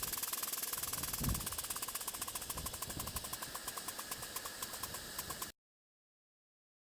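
A library sound effect sped up tenfold: fast, even mechanical clicking over a hiss, like a ratchet or gear mechanism, which cuts off suddenly about five and a half seconds in.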